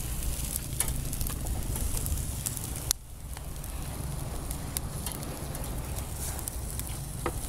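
Whole snakes and a fish sizzling on a charcoal grill, with sharp crackles and pops from the coals and cooking skin. A steady low rumble runs underneath.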